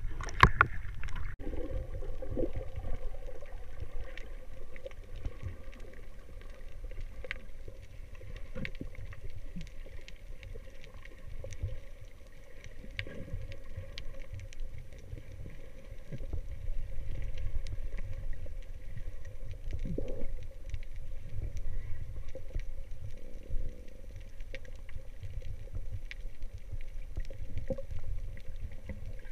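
Muffled underwater sound picked up by an action camera in its waterproof housing as a freediver swims down: low rumbling water movement with scattered faint clicks and a faint steady hum.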